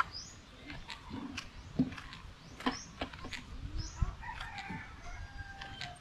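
A rooster crowing once, starting about four seconds in, over scattered clicks and knocks and short high chirps.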